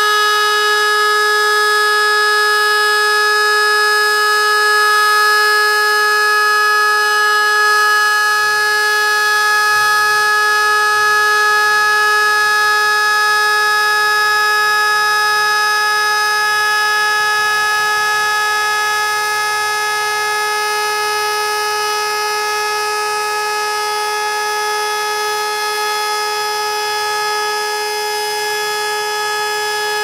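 Federal Signal Model 2 dual-tone siren holding its steady Alert tone at full speed: a loud, unwavering chord. It is pitched lower than is normal for this model.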